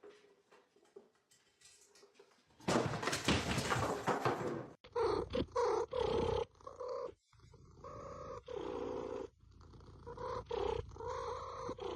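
Domestic cat purring loudly close to the microphone, starting about two and a half seconds in as a rhythmic run of rumbling pulses, each under a second long.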